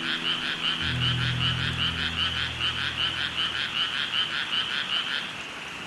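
Frogs calling in a fast, even series of croaks, about five or six a second, that stops about five seconds in.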